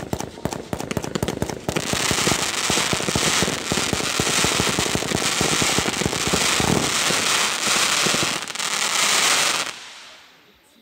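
Fireworks going off in a rapid barrage: dense, quick-fire pops and crackling over a continuous hiss, dying away shortly before the end.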